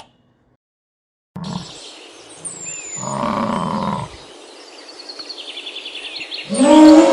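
After a short silence, a large animal gives a low roar lasting about a second, with birds chirping in the background. Near the end a dog starts howling loudly.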